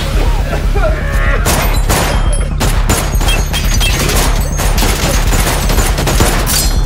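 A rapid volley of gunfire from several handguns, dense shots starting about a second and a half in and keeping on, over low background music.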